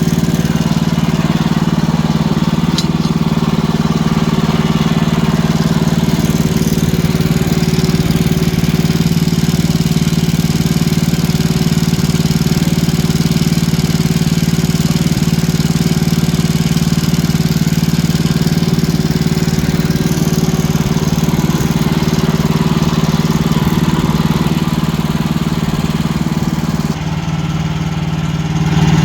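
Wood-Mizer LX55 sawmill's engine running steadily. Near the end it drops in level briefly, then picks back up.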